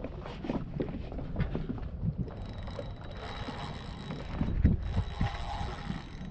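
Wind rumbling on the microphone, with irregular knocks and handling noise aboard a small boat while a hooked redfish is being fought on rod and reel.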